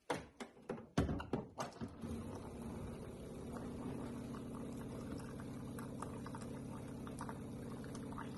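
A ceramic mug knocks and clatters as it is set under a Primo water dispenser's spout, then from about two seconds in water runs steadily from the dispenser into the mug over a low, even hum.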